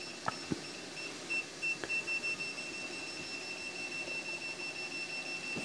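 Klein Tools ET120 combustible gas detector alarm beeping: short high-pitched beeps that come faster and run together into a steady tone about halfway through. The alarm signals combustible gas leaking from the gas oven's burners as it preheats.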